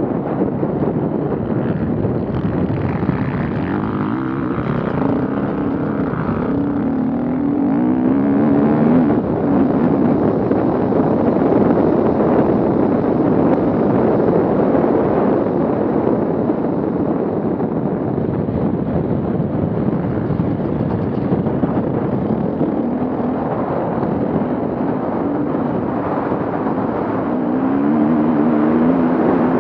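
Off-road vehicle engine running hard, its pitch wavering up and down in quick revs a few seconds in and again near the end.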